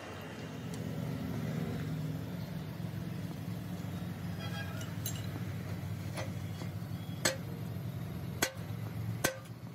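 A machine's motor running with a steady low hum, with several sharp metallic clinks in the second half.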